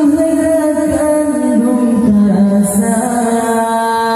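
A man singing an Acehnese qasidah in an Indian-style melody into a microphone, with long held notes that slide slowly from one pitch to the next.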